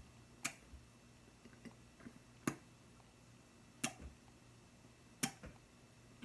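Sharp, quiet clicks: four clear ones spaced about a second and a half apart, with a few fainter ticks between.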